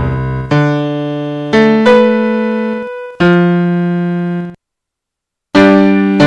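Slow background keyboard music: chords struck about once a second and left to fade, breaking off into about a second of silence near the end before a new chord comes in.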